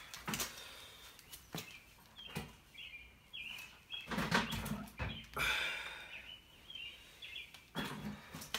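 Handling noise as large crappie are lifted off a sheet of cardboard: scattered clicks, rustles and soft knocks, loudest about four to five seconds in. Short high chirps repeat in the background through the middle.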